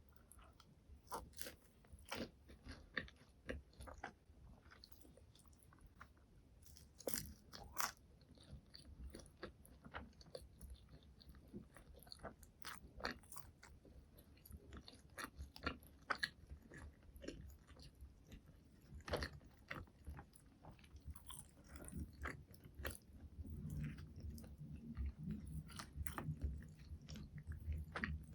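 Close-miked ASMR eating of McDonald's fast food: steady chewing with frequent sharp crunchy bites and small crackles, and a denser low rumble of chewing near the end.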